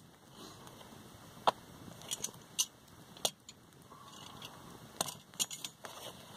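Scattered sharp clicks and light knocks, with a quick cluster of them about five seconds in: camping gear being picked up and handled to make tea.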